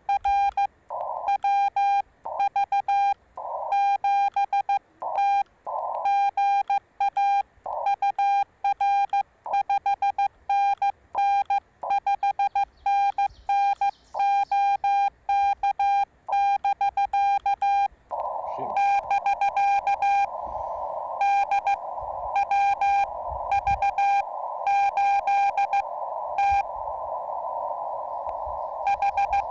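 Morse code tones from a Yaesu FT-891 transceiver on CW: a single keyed tone in rapid dots and dashes. For the first two-thirds the gaps between elements are silent, as with the operator's own sending heard as sidetone. Then a steady band of receiver hiss comes in under the tones, as with a station received through the narrow CW filter.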